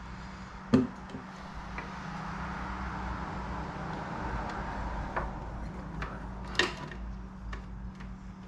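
Hand handling of the table saw's plastic switch parts and connectors: scattered clicks and knocks, the sharpest about a second in and another near the end. Under them a steady low hum, and a soft rushing that swells and fades in the middle.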